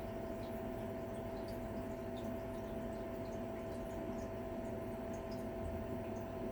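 1983 Mitsubishi V-30ZPU pipe ventilation fan running steadily: an even motor hum with one clear steady tone over a rush of air.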